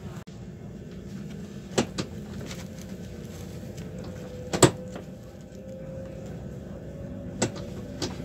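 ICE 4 train running, heard from inside the passenger car: a steady low rumble with a faint steady hum, broken by five short sharp clicks or knocks, the loudest about halfway through.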